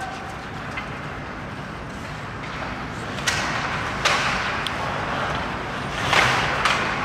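Ice hockey play: two sharp knocks from sticks and puck a little under a second apart, about three seconds in, then a short hissing scrape near the end, over steady rink noise.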